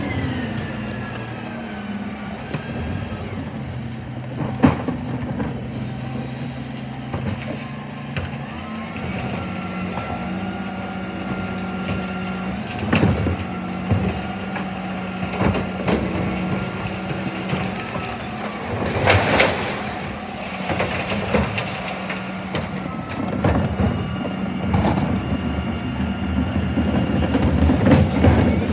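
Dennis bin lorry's diesel engine idling steadily, with sharp knocks and clatters of plastic wheelie bins being wheeled to it and worked on its rear bin lift; the loudest clatter comes about two-thirds of the way in and again near the end.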